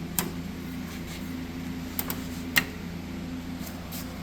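Bridgeport step-pulley milling head driven by a 2 HP single-phase Dayton motor, running with a steady hum. A few sharp clicks and knocks come through it, the loudest about two and a half seconds in, as the head is being put into back gear.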